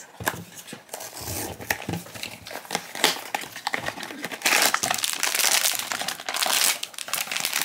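A Pop Mart blind box being unpacked by hand: the cardboard box is handled and opened, then its foil inner bag crinkles and crackles. The crinkling grows louder about halfway through.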